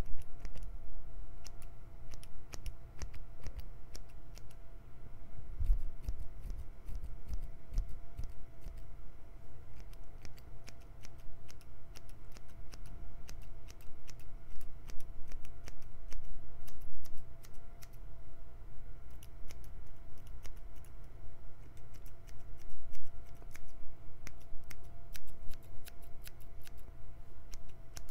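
Barber's scissors snipping over and over in quick, irregular runs of crisp clicks, with a faint steady hum underneath.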